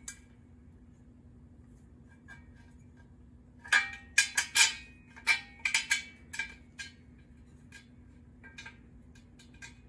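Metal screw clicking and clinking against a painted metal bracket as it is pushed through a hole by hand: a quick run of sharp clicks about four seconds in, then a few scattered ones.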